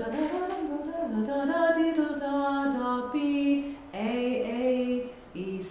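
A woman singing a short melodic line in held notes that step up and down, with a brief pause about four seconds in.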